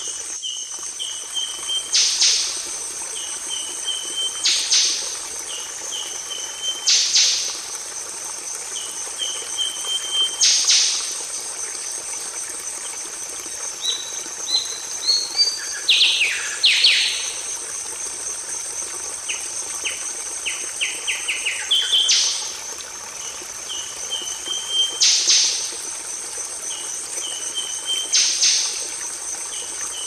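Songbird song from a bird-training (masteran) recording: short phrases every two or three seconds, each a few quick stepped notes followed by a louder burst, with a longer varied phrase about halfway and a rapid string of short notes a few seconds later. A steady high insect trill runs underneath.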